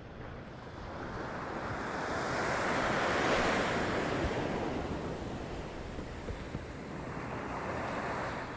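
A wave washing ashore: a rushing noise that swells to a peak about three seconds in and fades away, with a smaller swell near the end, and wind buffeting the microphone.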